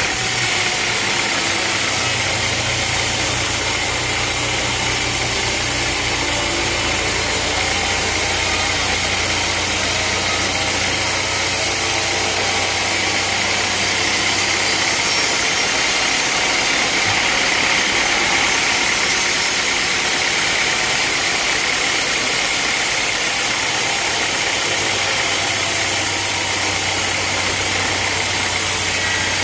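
Sawmill machinery running steadily: a loud, continuous engine-like drone that keeps an even level throughout, with no starts or stops.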